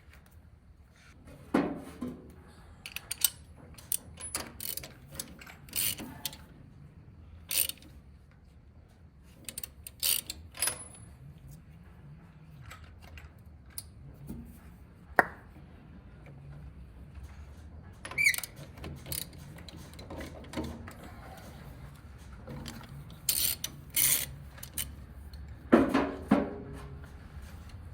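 Ratchet wrench and socket working a spark plug: short runs of ratchet clicking and sharp metal clinks, irregularly spaced, with louder clicks about halfway through and near the end.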